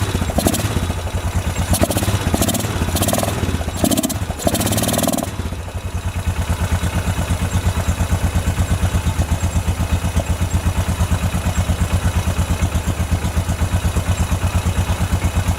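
Freshly rebuilt 2007 Honda ATV engine, with a new piston and cylinder, running just after its first start. For about five seconds it runs unevenly with rattly bursts, then it settles into a steady, even idle that sounds like it is running good.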